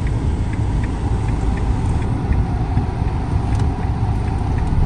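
Steady low rumble of a Mahindra Scorpio's engine and tyres, heard from inside the cabin as it crawls through traffic. A faint light ticking, about three a second, runs through the first couple of seconds.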